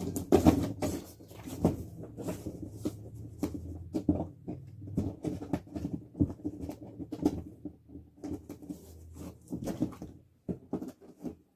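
Cardboard box and packaging rustling, scraping and knocking irregularly as the animatronic's parts are pulled out of the box.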